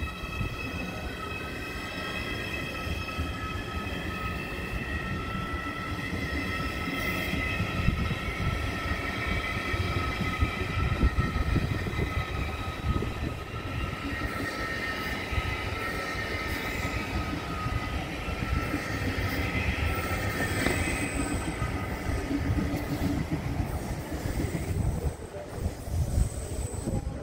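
ICE electric high-speed train pulling out of the station: a whine in several high pitches, some gliding upward, over a steady low rumble of the wheels on the rails.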